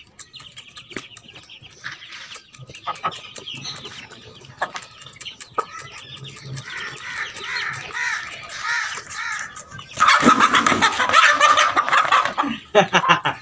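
Chickens clucking while pecking grain off a concrete floor, with many quick taps. About ten seconds in, a hen breaks into loud squawking for a couple of seconds as she is grabbed by hand.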